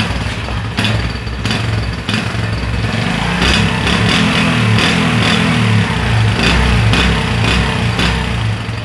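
Honda CD 70's single-cylinder four-stroke engine running for a sound check, getting louder from about three seconds in and staying up for most of the rest.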